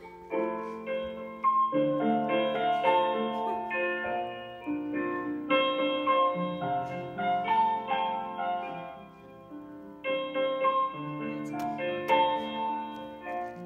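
Background music: a piano playing a melody of held notes over chords.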